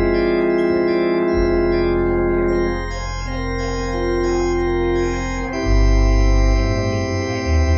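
Organ playing a postlude after the dismissal: long held chords over deep pedal bass notes, the harmony changing every couple of seconds.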